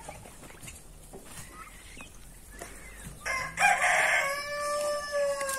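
A rooster crowing once, starting about three seconds in: a rough, noisy opening, then a long held call that drops in pitch at the end.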